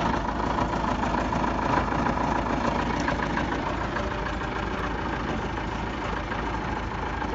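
The 1940 Aeronca 65TC's Continental A-65 four-cylinder air-cooled engine and propeller running steadily, heard from inside the small cabin.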